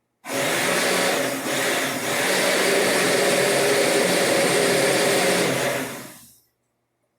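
Kitchen blender running at full speed, blending a batch of thick homemade mayonnaise. It starts abruptly, dips briefly about a second and a half in, and winds down near the end.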